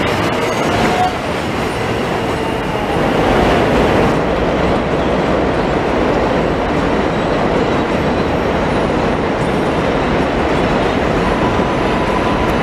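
Elevated subway trains running over a steel viaduct: a steady, loud noise of wheels on the track. A thin steady tone comes in near the end.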